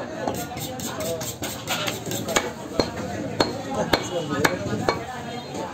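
Meat cleaver chopping beef on a wooden log chopping block: a series of sharp chops, coming about every half second in the second half.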